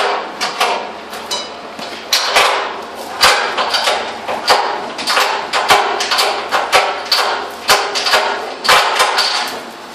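A steel fireplace firebox clanking and knocking irregularly, about two knocks a second, as it is shifted and carried.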